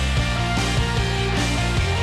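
Rock background music with bass guitar and a steady beat.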